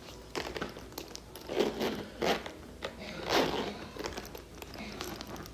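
Zipper on a Louis Vuitton Loop Monogram handbag being slid along its track a few times, short rasping strokes with small clicks and rustles from handling the bag.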